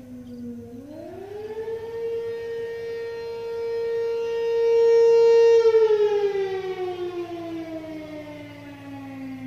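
ACA P-15 outdoor warning siren sounding its wavering Attack signal, the town's fire-call signal, heard from about a quarter mile away. Its pitch climbs about a second in, holds high while swelling to its loudest, then slowly falls.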